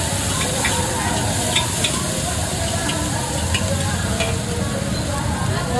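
Food sizzling as it is stir-fried in a hot pan, with scattered scrapes and clicks of the spatula against the pan.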